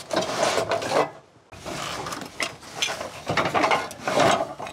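Rough scraping and rattling in three bouts as a fitting is worked and taken down by hand.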